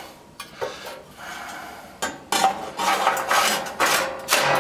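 Steel pull-out tray of a wood pellet stove scraping and clanking against the stove as it is handled and slid back in. A few small knocks come first, then a run of sharp metallic clatter from about two seconds in, loudest near the end.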